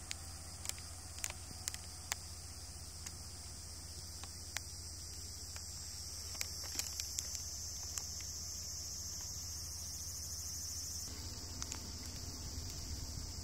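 Steady high-pitched buzzing chorus of insects, with a few faint clicks over a low steady rumble.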